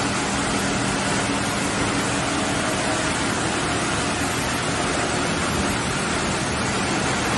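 PET bottle recycling washing line running: a steady industrial din with a faint low hum.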